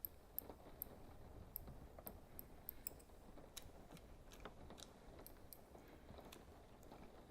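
Light, irregular clicks and taps from eyeglasses being handled and tapped, quiet and close, coming thickly for the first few seconds and then more sparsely. Under them runs a faint, steady background rain.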